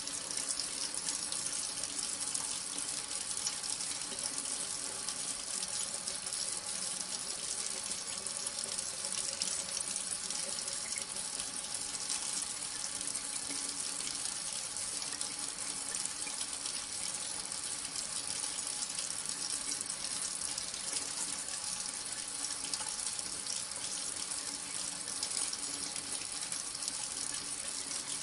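Bathroom sink faucet running steadily, the stream of water splashing into a porcelain basin.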